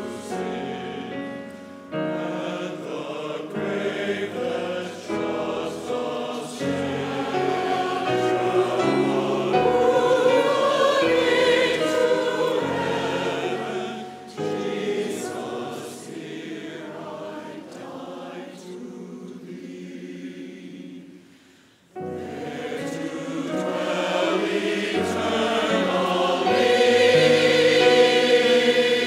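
Large church choir singing with piano accompaniment. The music thins almost to nothing about 22 seconds in, then comes back and grows louder toward the end.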